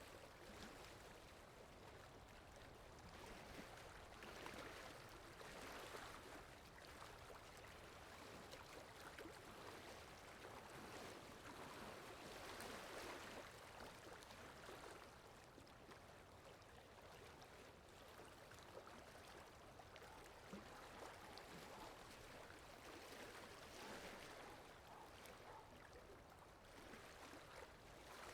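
Faint, steady rain falling, swelling and easing gently every few seconds.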